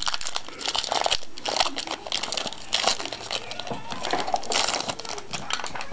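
Trading card pack wrapper crinkling and crackling in irregular bursts as it is torn open by hand.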